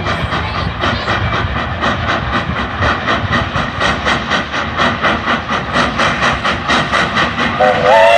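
Nevada Northern Railway No. 93, a 2-8-0 steam locomotive, working up the grade with a steady rhythm of exhaust chuffs over a low rumble. Near the end its multi-note steam whistle sounds loudly, sliding up in pitch as it opens.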